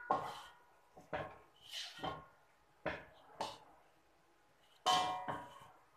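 A spatula knocking and scraping against a metal wok as cooked winter melon is scooped out onto a plate: a run of sharp clanks with a brief metallic ring, the loudest at the start and about five seconds in.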